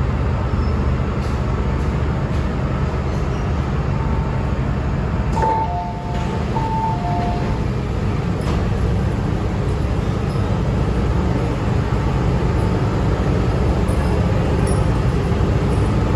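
Interior running noise of an MTR M-train: a steady low rumble as the train stops at a station and the doors open. About halfway through a two-note chime sounds twice.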